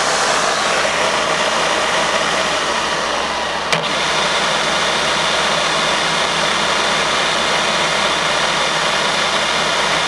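Hermle UWF800 milling machine running steadily, with a single sharp click about four seconds in.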